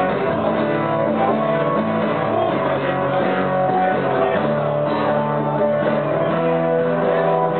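Acoustic guitar strumming chords steadily in a live unplugged rock song, an instrumental passage without singing.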